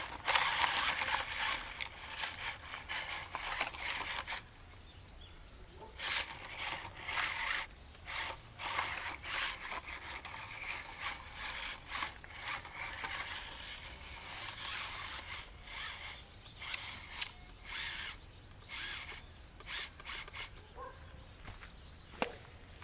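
Electric motor and gears of a small 1/24-scale RC short-course truck whining in repeated short throttle bursts, with its little wheels scrabbling on dirt and roots as it tries to climb and gets stuck on rocks.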